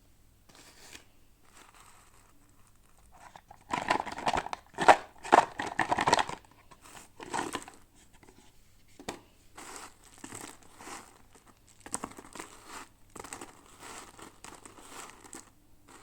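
Plastic toy packaging being crinkled and torn open by hand, in irregular rustling bursts that are loudest about four to six seconds in, then quieter crinkling.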